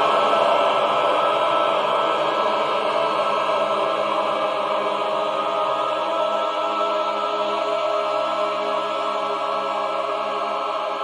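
Background music of sustained, held tones, without a beat.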